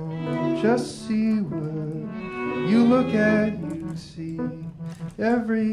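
Live chamber music: bowed strings (violin, viola and cello) hold sustained notes over a steady low drone. A new phrase swells in about every two seconds, each beginning with a slide up in pitch.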